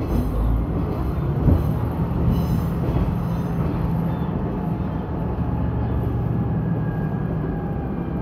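Diesel railcar running along the line, heard from inside the car: a steady engine hum and rail running noise, with one sharp knock about a second and a half in.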